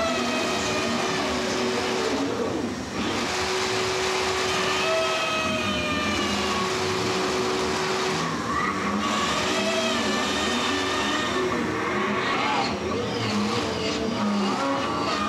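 Live electronic noise-art performance, played through turntables and effects pedals: a dense wall of hiss, a held low drone that cuts in and out every couple of seconds, and squealing tones sliding slowly in pitch above it.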